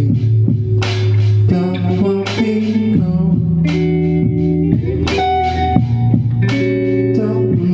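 A live rock band playing an instrumental passage: guitar chords over a steady bass line, with regular sharp hits on the beat.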